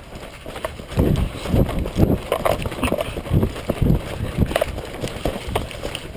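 Running footsteps on a dirt and leaf-litter trail, heavy irregular thuds about two or three a second, starting about a second in.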